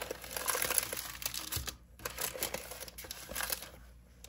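Clear plastic packaging crinkling as a plastic-wrapped bundle of stationery is pulled out of a pouch and handled. It comes in two stretches with a brief pause between and dies away near the end.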